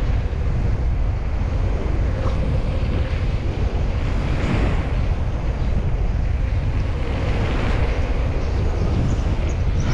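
Wind buffeting the microphone of a moving bicycle rider, a steady loud rush with no clear rhythm.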